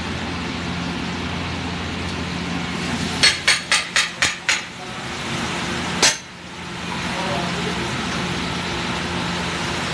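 A metal spatula striking a large flat iron griddle (tawa) of pav bhaji: six quick sharp clanks at about four a second, then one more clank about a second and a half later. A steady background hum runs underneath.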